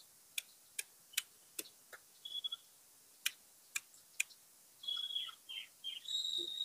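A small bird's short high chirps and quick falling notes, mostly in the second half, with a series of sharp, separate clicks before them, about half a second apart at first.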